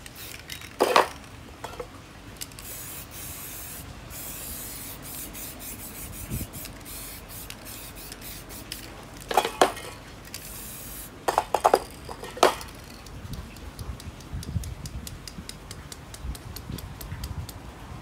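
Aerosol spray paint cans hissing in short bursts, with a few sharp metallic clinks of the cans. In the last few seconds there is a rapid crackling sputter, the kind a spray can makes when white paint is spattered to make stars.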